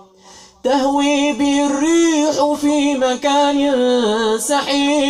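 A man reciting the Quran in a slow melodic chant, coming in about half a second in after a short pause and drawing out long held notes that rise and fall.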